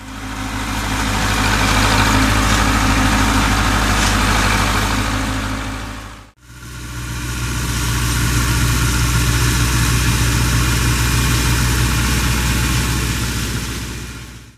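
A machine running with a steady low hum, in two stretches that each fade in and out, with a short break about six seconds in.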